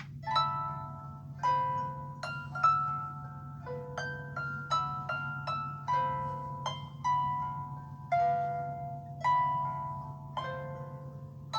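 Samsung Galaxy Young 2 ringtone playing: a melody of plucked, harp-like notes, each struck and left to ring and fade.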